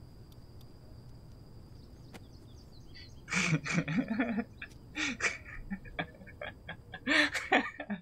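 Laughter breaking out about three seconds in and going on in several loud peals. Before it there is only a faint steady hiss with a thin high tone and a few light clicks.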